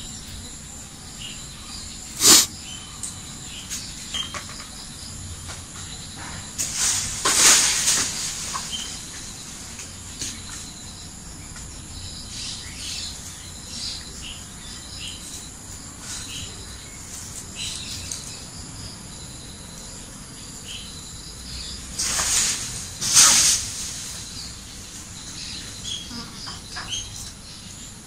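Steady high-pitched insect drone, with scattered short chirps. A sharp knock comes about two seconds in, and two louder noisy bursts of a second or so come around a quarter of the way in and near the end.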